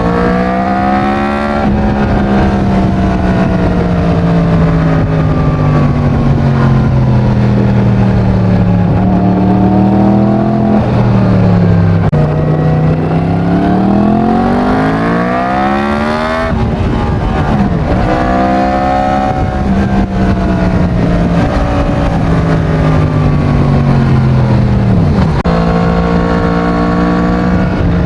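Yamaha MT-10's crossplane inline-four engine with its stock exhaust, under way. The engine pitch sinks slowly as the revs fall, then climbs again under throttle about halfway through. It drops abruptly at gear changes, with wind noise underneath.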